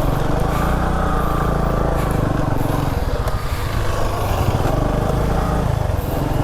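Motorcycle engine running steadily while riding, under a low wind rumble on the microphone.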